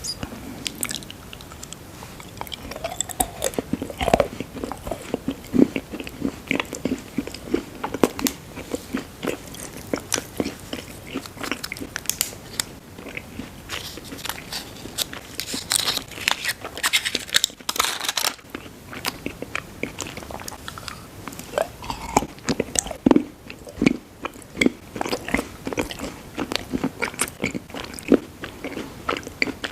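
Close-miked eating sounds: a person biting and chewing food, with many irregular, sharp crackles and crunches.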